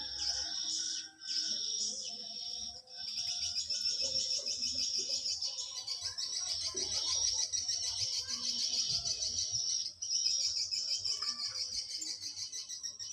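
Dense, continuous high-pitched chirping and fast trilling from wild birds or insects, growing fuller about three seconds in.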